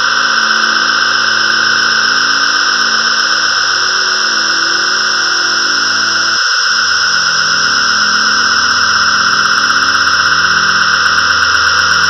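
GarageBand 'Storm' ambient keyboard patch from the Thunderous Ambience pack: a loud, steady storm-like wash of high noisy tones over a held low chord, which changes to a new chord about six and a half seconds in.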